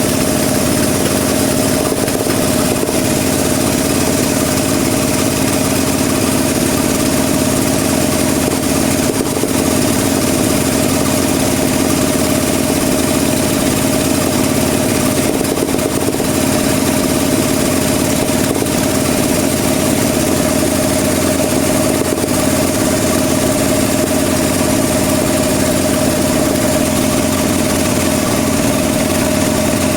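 Sawmill bandsaw running with a steady, unchanging mechanical drone and hum.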